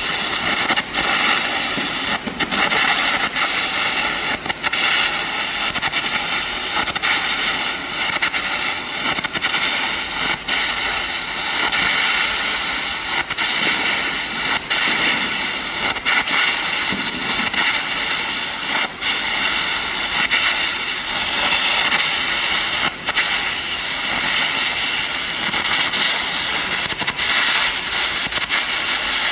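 Air carbon arc gouging: a steady, loud hiss from the compressed-air jet, broken by frequent sharp crackles and pops from the arc as molten metal is blown out of the groove.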